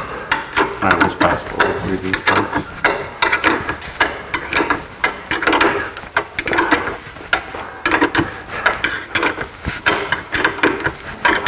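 Ratcheting wrench clicking in repeated short strokes as a lock nut is run down onto a tie rod end bolt, each stroke a quick run of clicks.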